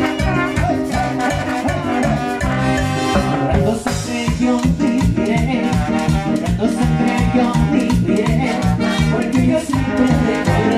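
Live brass band playing an instrumental Latin dance passage: trombones and saxophones over timbales, drum kit and bass drum, with a steady beat.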